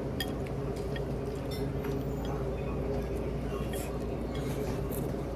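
Scattered small clicks and clinks of cutlery and dishes during a meal, over a steady background hum.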